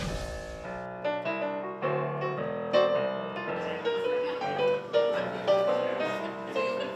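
Piano music: a melody of clearly struck, ringing notes over lower chords. A rushing noise fades out in the first second before the notes come in.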